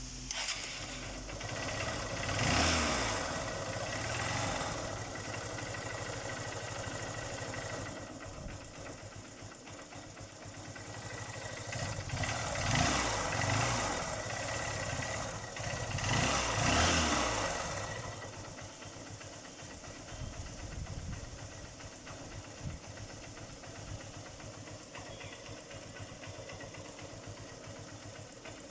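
Engine freshly rebored and fitted with new pistons, idling and revved up briefly several times, each rev rising and falling back, then settling to a steady idle for the last ten seconds. It runs without the engine noise the rebore and piston replacement were done to cure.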